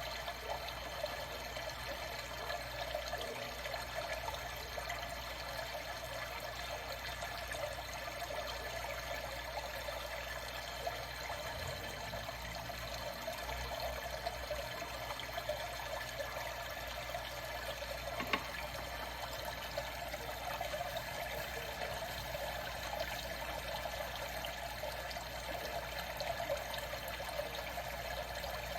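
Water trickling steadily, with one brief click about eighteen seconds in.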